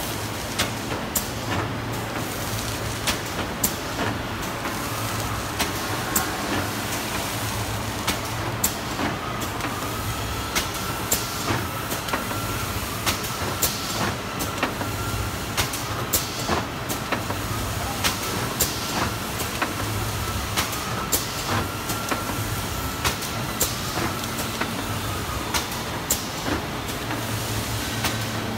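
CHOVYTING CW-800HCB isothermal bag cutting machine running on printed film, its cutting and sealing heads clacking over and over, about one or two sharp clacks a second over steady machine noise.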